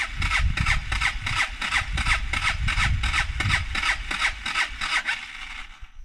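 Motorcycle's electric starter cranking the engine, turning it over at about four pulses a second without it catching, then stopping just before the end. The carburetor is flooded with fuel that spilled when the bike fell over, which makes it hard to start.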